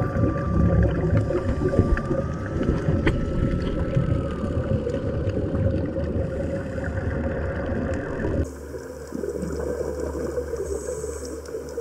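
Underwater sound picked up by a diver's camera: a loud low rumbling wash of water and exhaled regulator bubbles, with a faint thin steady tone during the first four seconds. About eight seconds in it changes abruptly to a quieter, steadier low hum.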